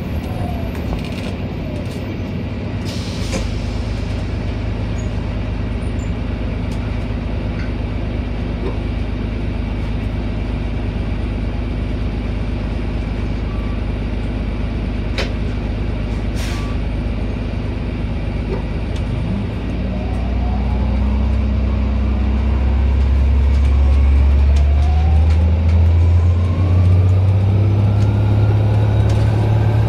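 2007 Orion VII hybrid bus, Cummins ISB diesel with BAE Systems HybriDrive, running with a steady low hum and a few short clicks and hisses. About two-thirds through it pulls away: the drone grows louder and a whine from the hybrid drive rises steadily in pitch as the bus gathers speed.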